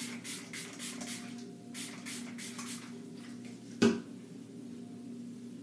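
Several quick spritzes of a pump bottle of sea salt spray onto hair, each a short hiss, followed by a single sharp knock about four seconds in. A faint steady hum runs underneath.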